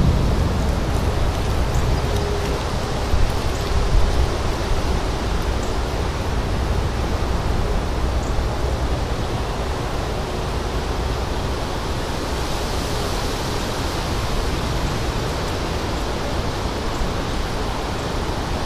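Strong, steady wind from a thunderstorm's outflow blowing over the microphone, a constant rush of noise with heavier low buffeting now and then.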